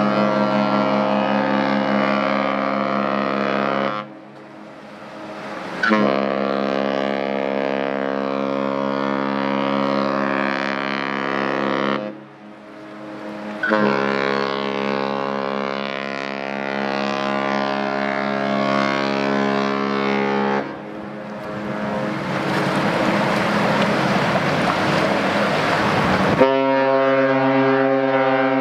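Cruise ship horn sounding three long, low blasts of several seconds each, separated by short gaps. A few seconds of rushing noise follow. Near the end a second horn of a different pitch starts.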